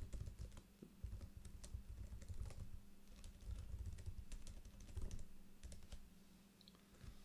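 Typing on a ThinkPad laptop keyboard: a quick, irregular run of key clicks that stops about six seconds in.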